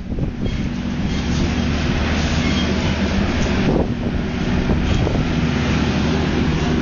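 Strong wind blowing across the microphone in a steady rush, with a constant low hum underneath.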